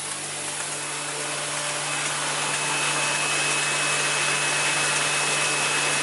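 Cable clip and nail assembly machine running: a dense, steady mechanical noise over a constant low hum, with a thin high whine coming in about two seconds in.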